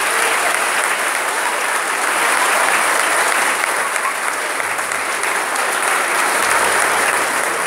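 A large congregation applauding: many people clapping at once, steady and continuous.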